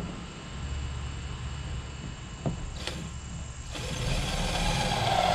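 Cordless drill running as it is driven into a canoe's wooden thwart, starting about three-quarters of the way in as a steady whine. Two light knocks come shortly before it.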